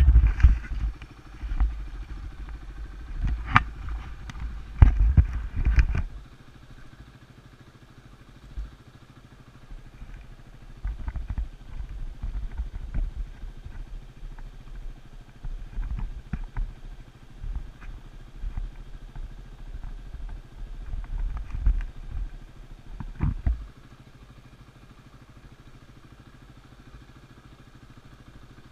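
Yamaha WR250R's single-cylinder engine running as the dirt bike rides a gravel trail, with surges of throttle. Several sharp knocks and clatter in the first six seconds are the loudest part; after about 24 seconds the sound settles to a quieter, steady rumble.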